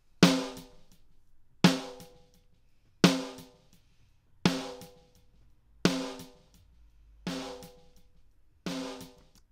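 Uncompressed snare drum loop playing back: seven snare hits about 1.4 s apart, each a sharp crack with a ringing tail that dies away. The later hits come softer.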